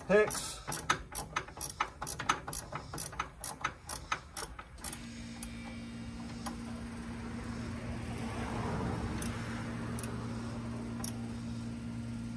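A hand ratchet clicking about three times a second as it turns a 5 mm hex bit to tighten a bolt, stopping about five seconds in. A steady low hum follows, swelling a little midway, with a few single clicks.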